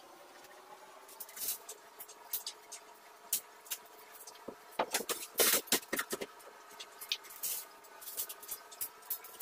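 Plastic wrap on a barn door being cut and peeled back by hand: a run of irregular crackles and rustles, busiest a little past the middle.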